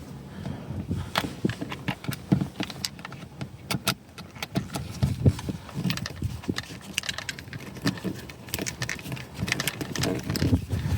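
Sped-up hand work on small mirror and camera hardware: a busy, irregular run of clicks, rattles and light knocks as brackets are handled, unscrewed and fitted.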